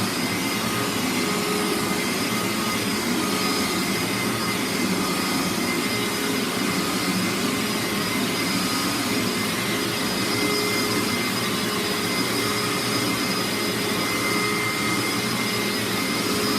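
Hoover SpinScrub carpet cleaner's motor running steadily with a high whine over a rushing air sound, its clean-water tank empty.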